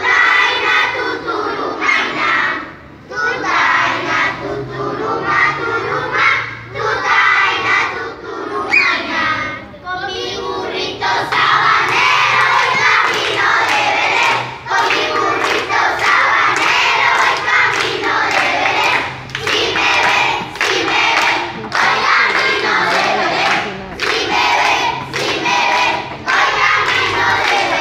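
A large group of schoolchildren singing a Spanish Christmas carol (villancico) together, loud and half-shouted. About a third of the way in, a steady beat of sharp strokes, about two a second, joins the singing.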